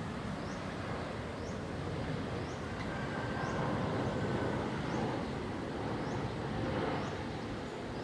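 Airbus A350's twin Rolls-Royce Trent XWB turbofans, a steady jet noise growing slightly louder, with a faint short chirp repeating about once a second.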